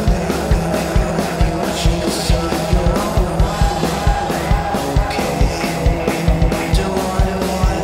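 Rock music: a dense, noisy wall of sound over a steady, fast drum beat.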